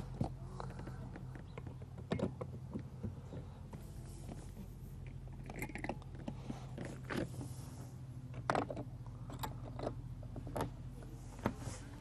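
Scattered plastic clicks, knocks and rubbing from handling the inflatable kayak's valve caps being put back on, over a steady low hum.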